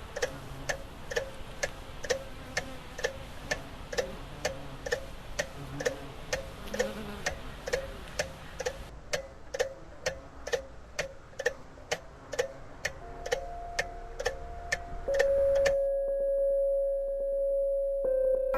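Clock ticking steadily, a little over two ticks a second. Near the end a steady electronic tone comes in and the ticking stops, leaving the held tone.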